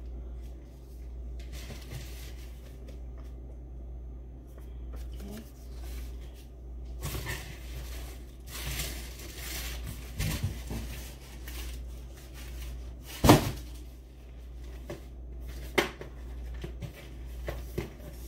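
Cardboard gift and shipping boxes being handled: rustling and scraping of cardboard and packing, with a few sharp knocks, the loudest a little past the middle and another soon after.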